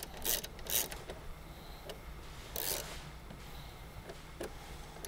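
A few short scrapes and clicks from a socket wrench on an extension working a headlight mounting screw against the plastic headlight housing and its bracket. The longest scrape comes between two and three seconds in.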